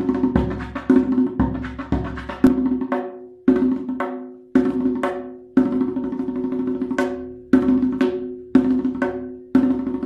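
Hand drum played with the fingers and palms in a steady rhythm of about two strokes a second, with a few short pauses. Each stroke rings on in a deep, pitched tone that dies away before the next.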